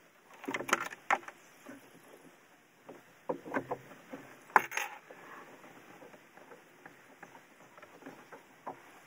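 Jet ski engine-to-driveshaft coupler being fitted by hand: short clicks and knocks of the metal coupler halves and rubber insert being pushed and shifted into place. They come in two short clusters, the loudest about four and a half seconds in, then only faint small taps.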